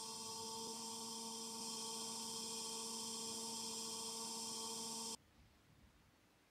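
Electric pottery wheel motor humming steadily as the wheel spins, with a hiss above the hum; the sound cuts off abruptly about five seconds in.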